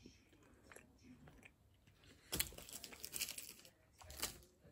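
A person chewing a piece of milk chocolate close to the microphone: soft mouth clicks at first, then a louder stretch of noisy chewing from about halfway and a short burst again near the end.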